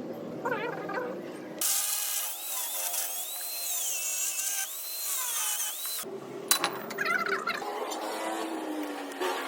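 Workshop power-tool noise in short spliced clips, changing abruptly about a second and a half in and again around six seconds in. The middle clip has a bright hiss with a wavering high whine.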